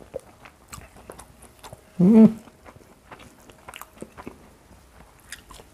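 Close-up eating sounds: small wet clicks and crunches of chewing and of fingers picking at fried carp and rice. About two seconds in there is a short, loud hum of voice.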